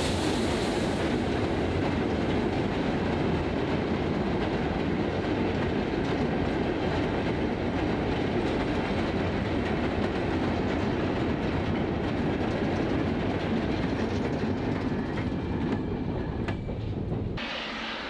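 A long rake of short-wheelbase steel mineral wagons ('windcutters') rolling past close by, a steady clatter of wheels on the rails. Shortly before the end the sound cuts away to something much quieter.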